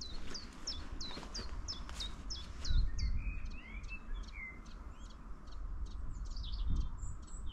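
Several birds singing: a quick run of short, high, falling notes, about three a second, for the first couple of seconds, then mixed chirps and warbles. A low wind rumble on the microphone sits underneath.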